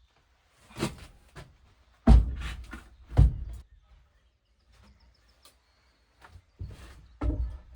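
A series of irregular thuds and knocks, the two loudest about two and three seconds in.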